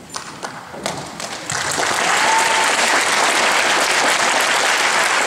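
Audience applauding: a few scattered claps at first, then about a second and a half in the clapping swells into full, steady applause.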